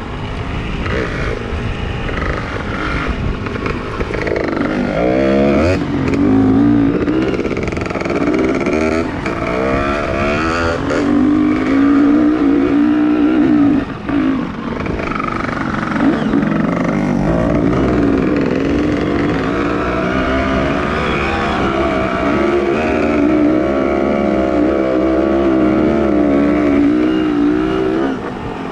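Dirt bike engine running under load, its pitch rising and falling with the throttle, with a brief drop in loudness about fourteen seconds in.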